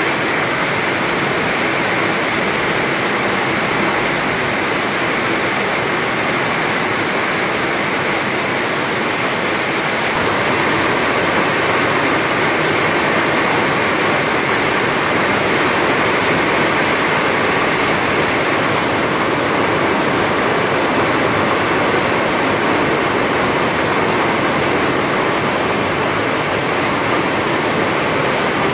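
Heavy rain falling steadily, a dense, even hiss that grows slightly louder about ten seconds in.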